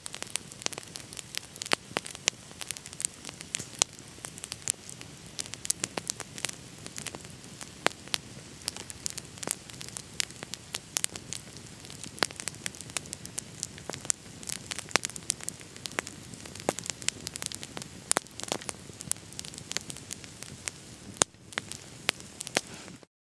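Campfire of oak logs crackling, with frequent sharp pops over a steady hiss. The sound cuts off suddenly near the end.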